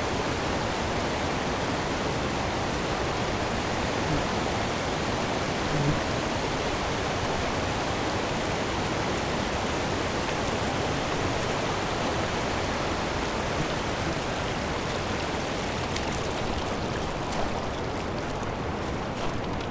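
Shallow river water rushing over a gravel riffle: a steady, even rush. Near the end the rush thins a little and a few faint clicks come through.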